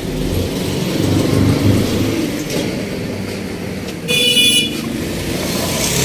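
Road traffic noise, a steady rumble, with a brief high-pitched toot about four seconds in.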